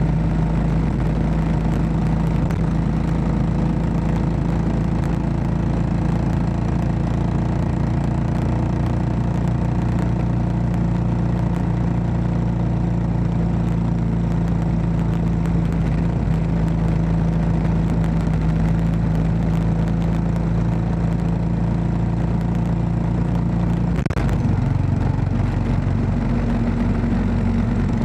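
Royal Enfield Classic 500's single-cylinder engine running at a steady speed on the move. Its note shifts abruptly near the end.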